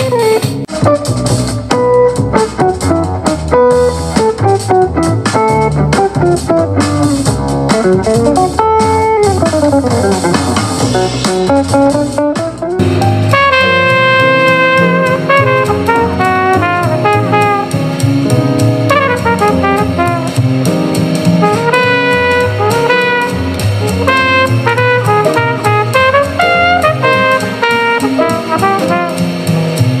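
Jazz with brass, saxophone and drum kit playing from a JBL Tuner 2 portable Bluetooth speaker set to 75% volume, picked up by a microphone in the room. About thirteen seconds in, the music switches abruptly to a brighter section with less deep bass and the horns to the front.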